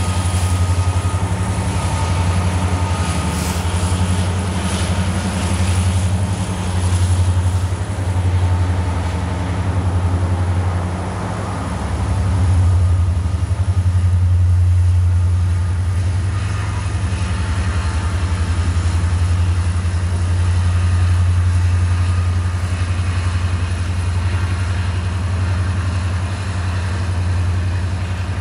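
Norfolk Southern SD70ACC diesel locomotives' engines working under load on the grade: a steady deep drone that swells and eases slowly. A faint high whine fades out over the first several seconds.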